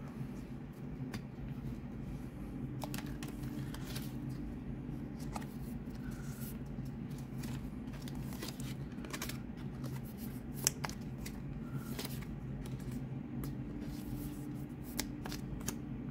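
Pokémon trading cards being handled and laid on a playmat: scattered soft flicks and clicks of card stock, with a sharper click about ten seconds in, over a steady low hum.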